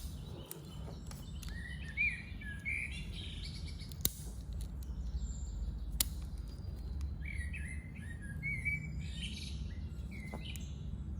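Small birds chirping and calling in the background in two spells of quick, twittering notes, over a low steady hum. A few sharp clicks come about two seconds apart in the first half.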